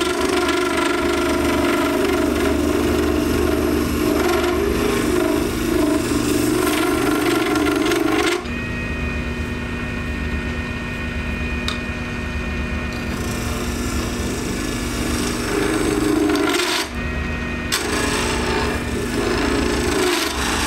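A turning tool scrapes a spinning blank of cast acrylic resin on a small lathe, peeling off plastic shavings with a steady rasping. About eight seconds in the tool comes off and the lathe runs alone with a steady whine for several seconds. Cutting starts again near the end.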